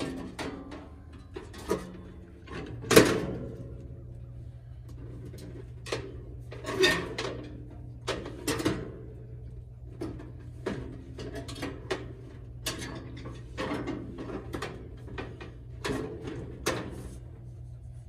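Irregular metal clanks, knocks and scrapes as the top panel of a heat pump's outdoor unit is worked loose and lifted off with its fan motor and blade, the loudest knock about three seconds in. A steady low hum runs underneath.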